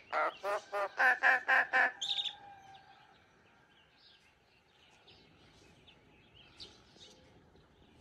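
Great myna chattering: a quick run of about eight short, evenly spaced speech-like syllables, then a single sharper chirp, then a few faint scattered chirps.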